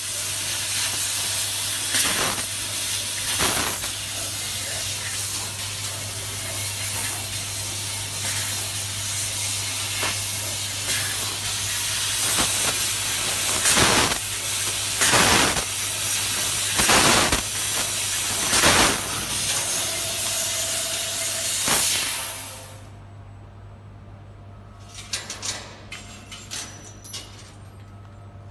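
CNC fiber laser tube cutting machine cutting, with a steady hiss of assist gas at the cutting head over a low hum and several brief louder surges. About 23 seconds in the hiss cuts off, leaving the hum and a few light clanks.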